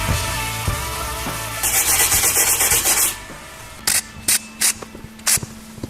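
Background rock music fades out under about a second and a half of abrasive grinding on the steel rear valance welds. This is followed by several short, separate bursts of hissing.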